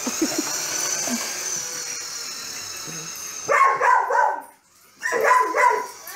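Carolina Dog–Basenji mix barking excitedly in play, in two short bursts in the second half. A high, thin, steady whine comes before them.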